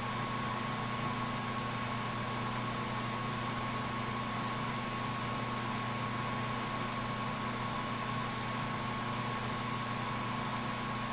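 Oxygen-fuel lampworking torch burning with a steady hiss, over a constant low hum and a thin steady tone.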